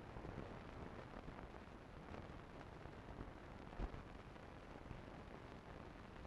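Faint hiss and crackle of an old film soundtrack with nothing recorded on it, with scattered small clicks and one louder pop nearly four seconds in.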